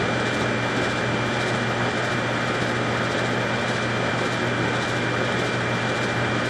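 A steady mechanical drone with a thin high whine, unchanging throughout.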